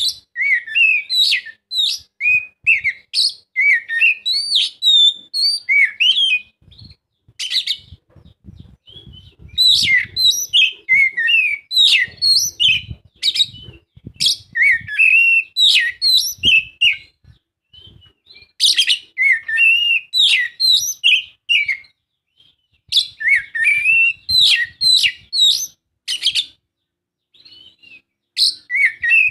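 Oriental magpie-robin (kacer) singing: rapid, varied whistled notes that glide up and down, in bursts of a few seconds separated by short pauses.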